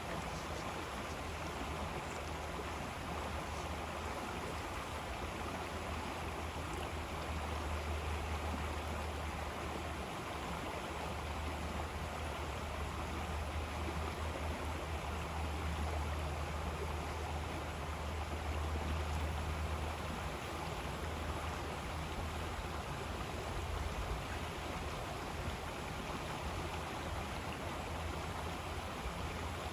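River water flowing and rushing steadily, with a deep low rumble underneath that swells and fades.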